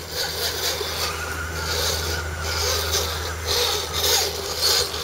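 Radio-controlled scale crawler trucks creeping over rock: a faint electric-motor whine with repeated rasping scrapes of tyres on stone, over a steady low hum.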